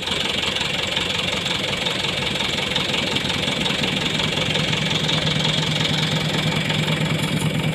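Loaded dump truck's diesel engine idling steadily, its low note growing a little stronger about halfway through.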